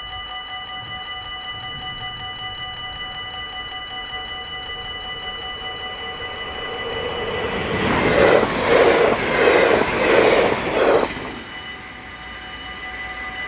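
Dutch level-crossing bells ringing rapidly and steadily. A train passes through from about seven seconds in, its wheels clattering over the rails in a run of rhythmic surges louder than the bells, then cutting off quickly near eleven and a half seconds while the bells keep ringing.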